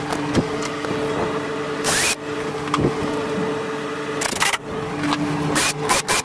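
DeWalt 20V cordless drill/driver running in short spins, about two and four seconds in, likely driving screws into the wood framing. Near the end its trigger is pulsed in quick bursts, three or four a second, each a brief rising whine. A steady low hum runs underneath.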